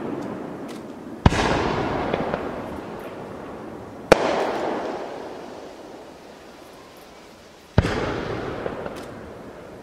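Aerial firework shells bursting: three sharp bangs about three seconds apart, each followed by a long rumbling echo that fades away, with a few faint crackles between them.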